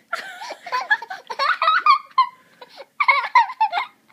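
High-pitched laughter in a run of short, pitch-wavering peals, with a brief pause about two and a half seconds in.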